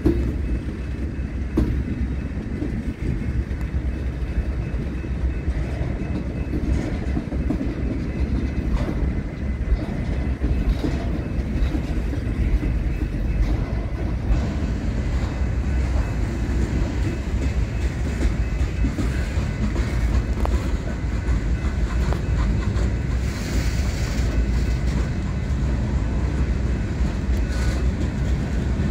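Freight train's cars rolling past: a steady rumble of steel wheels on rail, with scattered clicks and clanks.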